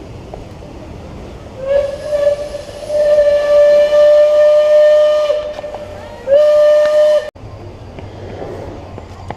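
Steam whistle blowing one long blast and then a short one, on a steady pitch. The short blast cuts off suddenly.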